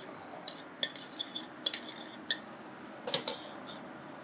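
Light, sharp clicks and clatters of small hard items being handled at a kitchen bench, about a dozen in a few seconds.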